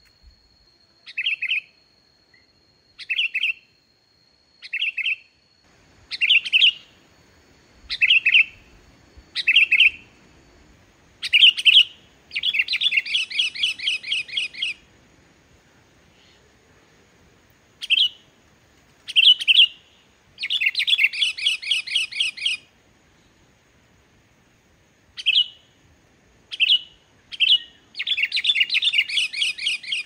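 Sooty-headed bulbul singing. Short, clear call notes come every second or two, and three times (about 12, 20 and 28 seconds in) they break into a run of rapidly repeated chattering notes lasting two to three seconds.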